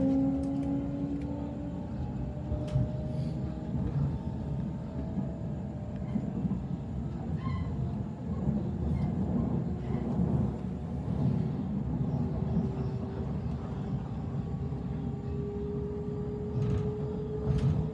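Inside a Sydney Trains Waratah B-set electric train carriage under way: a steady low rumble of wheels on track. Over it the traction motors whine, their pitch rising slowly as the train gathers speed. The whine fades a couple of seconds in and comes back from about twelve seconds.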